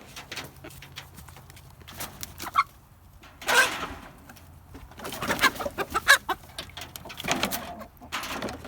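Chickens clucking and squawking, a short call about two and a half seconds in and then a run of louder calls.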